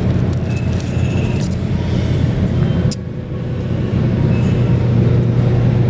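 A steady low hum with a few light clicks over it.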